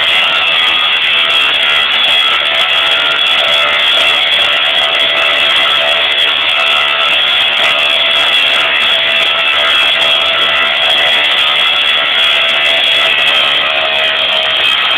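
Tesla coil discharging, a loud, steady, harsh electric buzz of sparks carrying several held tones.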